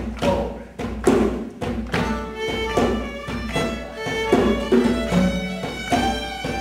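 Solo fiddle playing a lively traditional tune, coming in about two seconds in after a run of sharp thumps on the stage floor. Thumps keep sounding through the notes at a steady beat.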